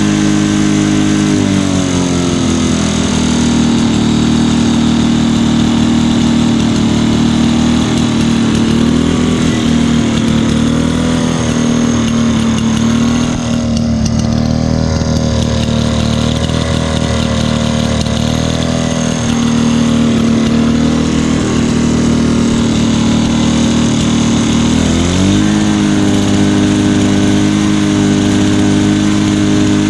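2003 Lawnboy 10323 walk-behind mower's engine running steadily; its speed drops about a second and a half in, wavers a little in the middle, and picks back up near the end.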